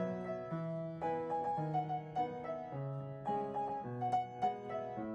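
Background piano music: a gentle melody of separate notes over a changing bass line.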